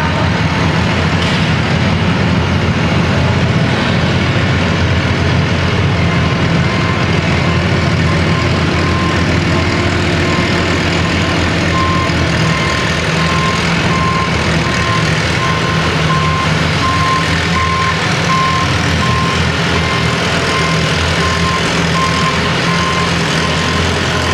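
Antique farm tractor engine running hard under full load while pulling a weight-transfer sled. From about halfway through, a back-up alarm beeps steadily over it.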